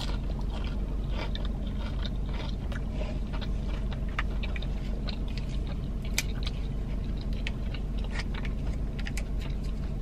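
Close-up chewing of fast food with small wet mouth clicks, over a steady low hum. Near the end come a few crinkly clicks of a foil-lidded dipping-sauce cup being peeled open.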